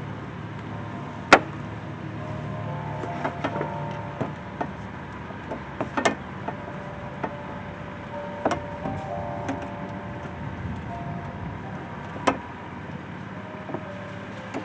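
Hands working on an air intake's parts: a few sharp clicks and knocks among smaller ticks, with short squeaks in two spells, over a steady low hum.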